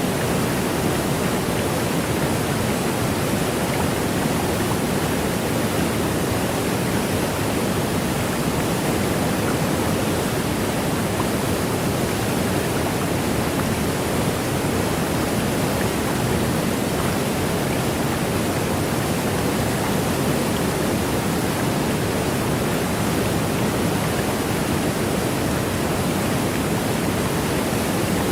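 A waterfall pouring: a steady, even rush of falling water that does not change.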